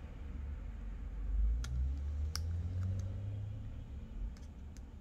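A precision tri-point screwdriver and a tiny screw clicking against the metal bracket of an iPhone's replacement screen as the screw is set in. About six light, sharp clicks come from about a second and a half in, over a low rumble of handling on the bench.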